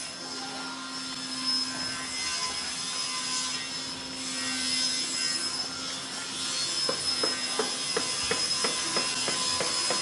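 Regular tapping knocks, about three a second, starting about seven seconds in, over a steady low hum and a steady high-pitched whine.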